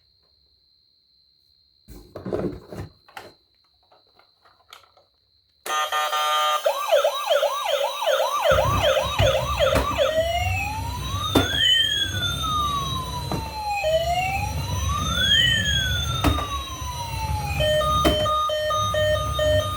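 Electronic siren of a toy emergency vehicle, starting about six seconds in after a few faint handling clicks: first a fast yelp of quick rising chirps, then a slow rising-and-falling wail, then a pulsed beeping pattern near the end. A low rumble runs underneath from about halfway in.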